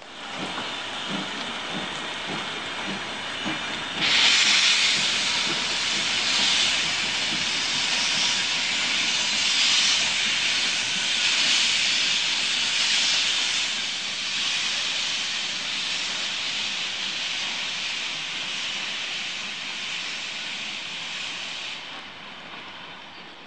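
Class 75 tank steam locomotive pulling away from a station: a few low, regular chuffs, then about four seconds in a loud hiss of steam sets in, swelling and easing in a slow rhythm, and stops abruptly near the end.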